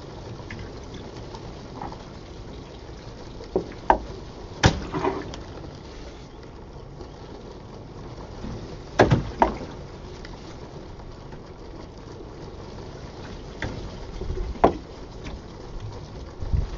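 Steam and condensate in an acrylic pipe, a steady wet rushing noise broken by sharp knocks and clicks. The loudest knocks come about every five seconds, sometimes in pairs. With 1% air in the steam the condensate-induced water hammer is suppressed, and the five-second knocks come from the pump's cyclic action, not from hammering.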